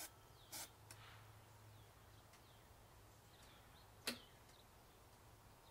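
Near silence, with faint bird chirps and a few short sharp clicks, the sharpest about four seconds in. There is no engine running.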